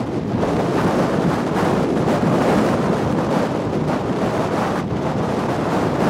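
Blizzard wind blowing hard across the microphone: a loud, steady rush of wind noise.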